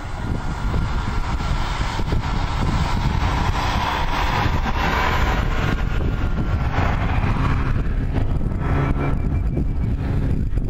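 A snowmobile engine running in the distance, louder around the middle, over wind noise on the microphone.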